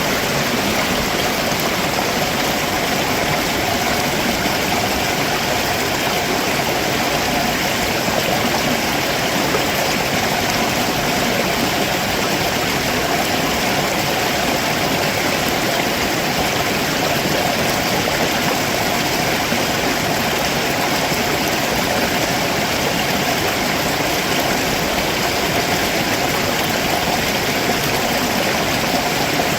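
A rocky stream below a waterfall: water rushing and splashing over rocks in a steady, even flow.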